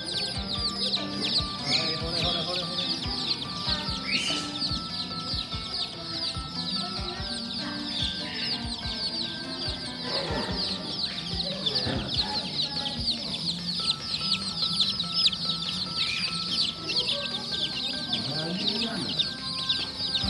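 A crowd of baby chickens (chicks) peeping continuously: a dense chorus of many short, high, falling peeps overlapping with no pause.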